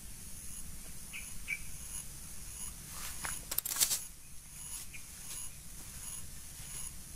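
Insects chirping in an even, repeating high pulse, with two short chirps a little over a second in. Between about three and four seconds, a burst of close rustling and scraping is the loudest sound: the fishing pole and line being handled among the bank's brush.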